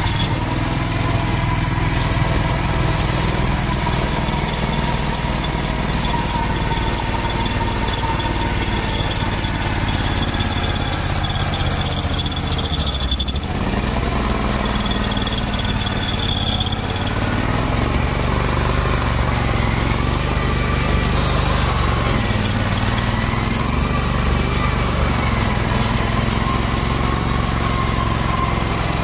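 Kohler CH730S 25 hp V-twin engine of a garden tractor running steadily under load while driving a front-mounted Simplicity snowblower through deep snow. A thin high whine comes and goes over it.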